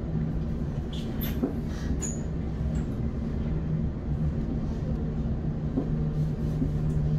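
Cabin noise inside a class 710 Aventra electric multiple unit under way: a steady low hum over continuous running rumble, with a few faint clicks and rattles between one and two seconds in.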